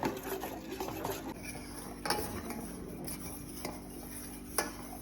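A spoon stirring and scraping in a pot of milk and condensed milk, with sharper clinks of the spoon against the pot about two seconds in and again near the end.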